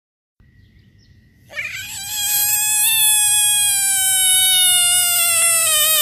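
A frog's distress scream: one long, high wail that starts about a second and a half in and slowly falls in pitch without a break.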